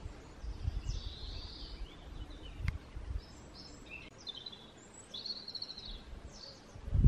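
Small birds chirping and twittering in short phrases over a low, uneven wind rumble. There is one sharp click a little under three seconds in and a low thump at the very end.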